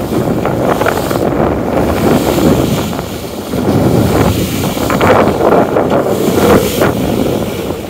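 Wind buffeting the microphone aboard a sailing yacht under way, with the rush of the sea around it; the noise surges and dips unevenly, easing briefly about three seconds in.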